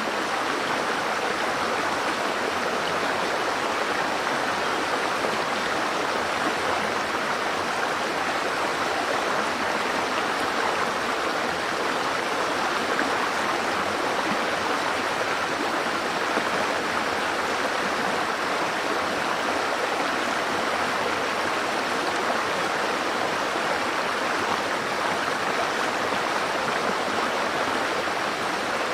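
Steady rush of running water, an even hiss with no breaks or changes.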